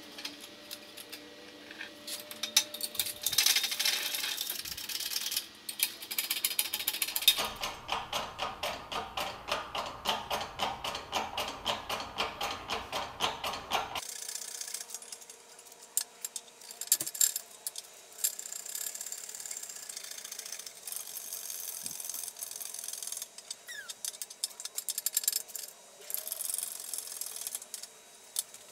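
Rapid metallic clicking and rattling from a hand-lever-worked shop machine's mechanism, like a ratchet, with a dense run of even clicks in the middle, then quieter scattered clicks after an abrupt change about halfway through.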